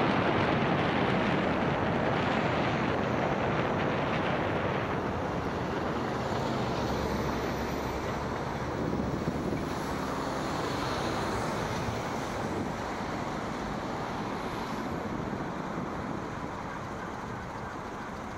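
Motorway traffic noise, a steady rush of tyres on the road that slowly grows quieter.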